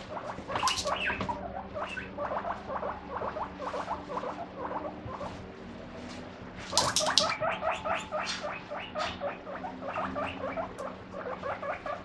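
Guinea pig giving a rapid run of short squeaky 'pui pui' calls, several a second, with a louder flurry about seven seconds in. These are the food-expecting calls it makes when the fridge where its vegetables are kept is opened.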